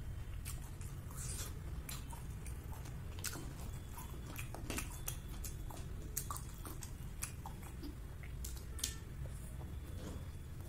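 Close-up mouth sounds of a person chewing food with the mouth closed: scattered short wet clicks and smacks, over a steady low hum. Near the end comes a bite into a soft steamed dumpling.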